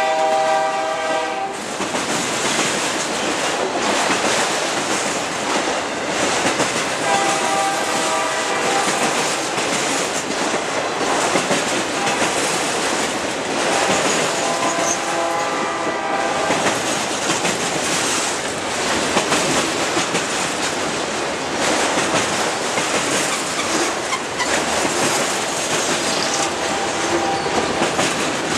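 A long freight train of autorack cars rolling past, its steel wheels rumbling and clattering steadily over the rails. A train horn sounds several times, at the very start, about a third of the way in, around the middle and faintly near the end.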